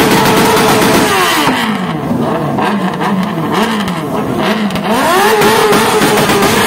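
Engine held at high revs with a steady scream. About a second in the revs drop and it is blipped several times, then near five seconds it climbs back up and holds high again.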